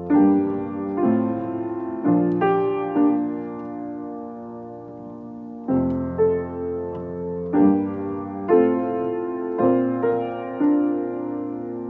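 Solo piano playing slow, sustained chords. A new chord or note is struck roughly every second, with a longer held chord in the middle, and each one rings and fades before the next.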